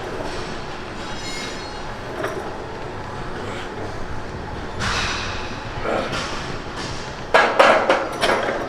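Steady background rumble, then a quick run of four or five loud knocks or clanks near the end.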